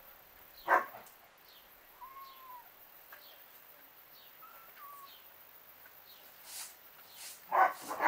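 A dog barking: one bark under a second in and two quick barks near the end. A small bird chirps repeatedly in the background.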